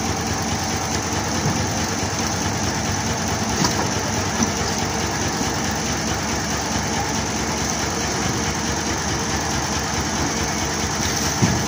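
Isuzu 10PD1 V10 diesel engine of a dump truck idling steadily while the hydraulic hoist lowers the raised dump box.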